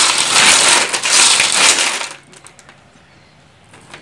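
Sun-dried clam shells clattering and grating against each other and the aluminium pot as a gloved hand mixes them, stopping abruptly about two seconds in. A few light clicks of shells follow.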